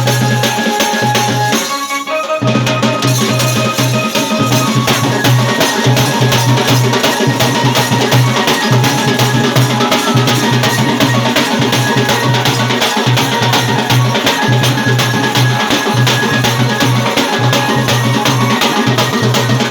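Saura folk dance music: fast, steady drumming under a held melody line, broken off briefly about two seconds in.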